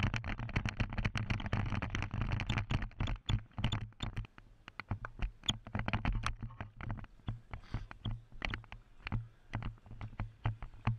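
Body-worn action camera knocking and rubbing in its mount, with irregular clicks several times a second as the wearer moves, over a steady low wind rumble on the microphone.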